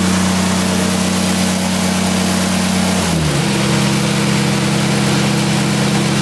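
Engine-driven hydraulic pump unit running steadily, being shut down after a pressure test; about three seconds in its tone drops and settles at a new pitch as it slows.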